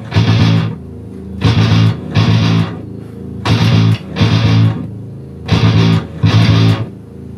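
Carvin electric bass played fingerstyle along with heavy-metal music, in a stop-start riff: short loud hits in pairs about every two seconds, with quieter gaps between.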